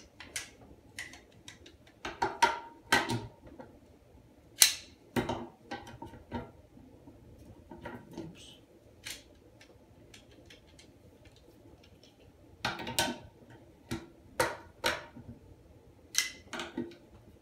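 Large pliers clicking and knocking against the plastic flush-valve nut on an upturned porcelain Kohler toilet tank as the nut is worked loose. The sharp clicks come irregularly in clusters, with quieter gaps between them.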